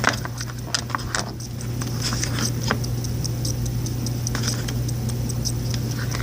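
Homemade slime being mixed and squished in a bowl: a steady scatter of small sticky clicks and pops, over a constant low hum.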